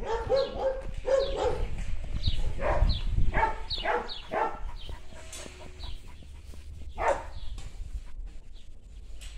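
Dogs barking and yipping in play: a quick string of short barks over the first four seconds or so and one more about seven seconds in, over a low rumble.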